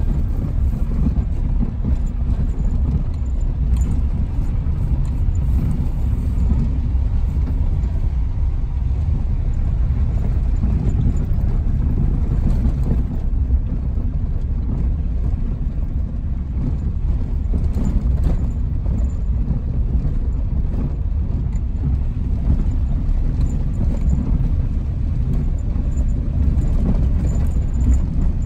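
Inside a car's cabin while driving over a rough gravel track: a steady low rumble of engine and tyres on loose stones, with scattered small clicks and rattles.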